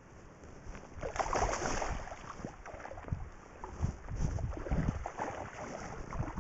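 Shallow river water sloshing and splashing as a released chum salmon swims off, with wind buffeting the microphone in low thumps.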